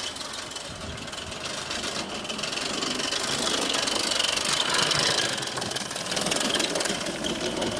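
Mamod/Bowman hybrid live-steam model locomotive chassis running past at speed, its exhaust giving fast, closely spaced chuffs with steam hiss, growing louder to a peak about four to five seconds in as it passes. It runs fast on a globe valve, not a proper regulator, which leaves it hard to slow down.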